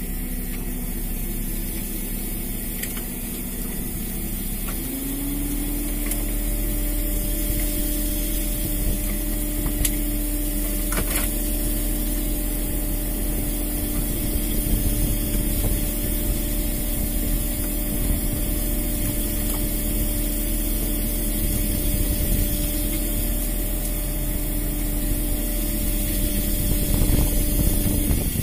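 Fishing boat's engine running with a steady hum; its pitch rises a step about five seconds in, then holds.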